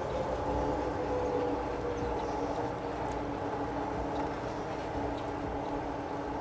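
Electric bike cruising on pavement: a steady hub-motor whine of a few held tones, one easing slightly lower in the first couple of seconds, over a low rumble of tyres and wind.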